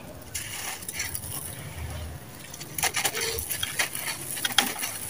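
Dry, gritty sand-cement chunks crumbled and crushed by bare hands, loose grains and powder spilling down onto the pile. The crunching crackles come thicker and louder from about halfway through.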